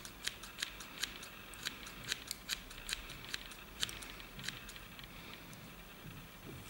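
Sharp scissors snipping the stiff synthetic Twist Hair fibres of a seabass streamer fly: a quick run of crisp snips, about three or four a second, that thins out and stops about four and a half seconds in.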